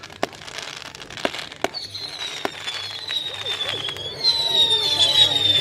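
Fireworks going off: scattered sharp cracks, then high whistles that fall slowly in pitch and grow louder about four seconds in.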